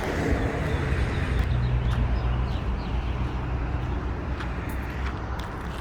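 A motor vehicle running with a steady low hum, with the faint hiss of outdoor background noise.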